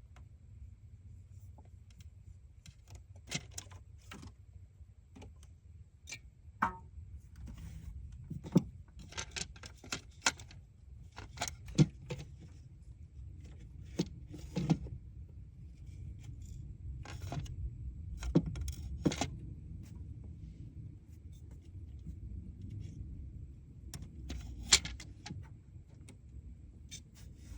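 Irregular clicks, knocks and light metallic clinks of parts and hand tools being handled, over a steady low hum.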